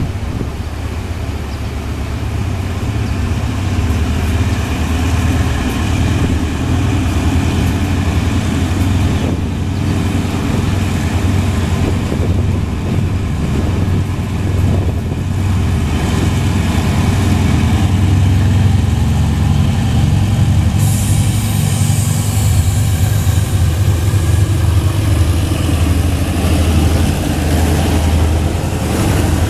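Hitachi diesel-electric locomotive pulling out with a passenger train: a steady low engine drone that grows gradually louder as it approaches and draws alongside. A high hiss joins about two-thirds of the way through.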